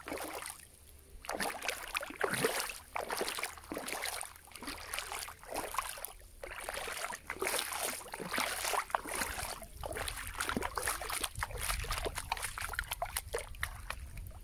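Lake water sloshing and splashing in irregular swells, with many small sharp splashes.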